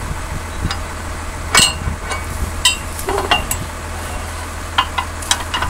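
Several sharp metallic clinks and knocks, spread irregularly, as the steel hitch parts of a White 588 moldboard plow are handled and fitted, over a steady low rumble.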